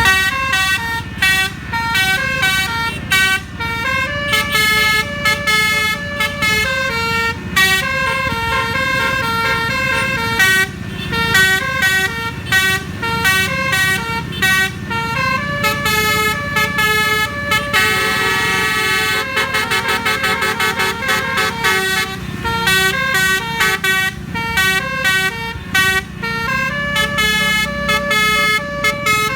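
Telolet musical air horn on the QQ Trans "Winspector" bus playing a fast melody of quickly changing notes, with a rapid warbling trill about two-thirds of the way through. A low rumble runs underneath.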